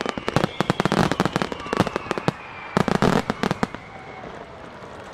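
Aerial firework shells bursting in a rapid salvo, dozens of sharp bangs close together. The bangs thin out and stop about four seconds in.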